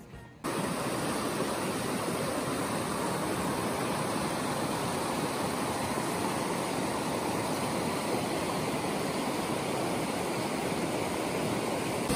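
Steady rush of a stream pouring in white water down bare rock slabs, cutting in suddenly about half a second in.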